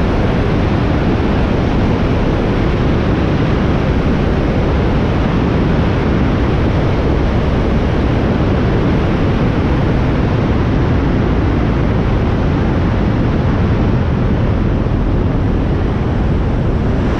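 Europa light aircraft's engine and the airflow over the airframe, heard as a steady, loud rushing noise as it lands and rolls out on the runway.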